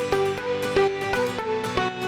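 Background music: plucked-string melody over a steady electronic beat.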